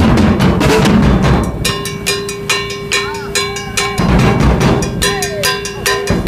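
Music with a driving drum beat, fast regular hits. Twice the low drums drop back, leaving the quicker hits over a held tone before the full beat returns.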